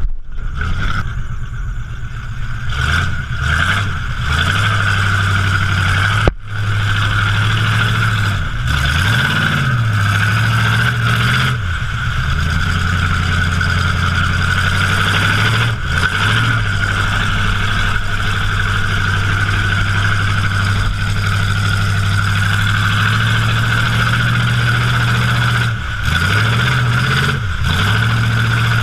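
Pickup truck engine running steadily while the truck drives through mud, with the revs rising and falling a few times. A sharp knock sounds about six seconds in.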